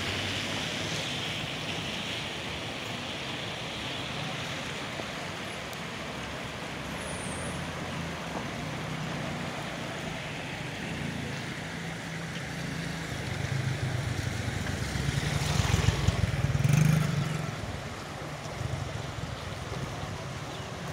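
Steady outdoor street noise with a low rumble of motor traffic, swelling to its loudest about three quarters of the way through and then easing off.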